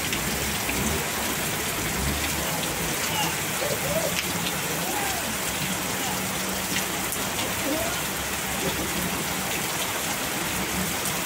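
Heavy rain falling steadily in a downpour, with a faint steady low hum underneath.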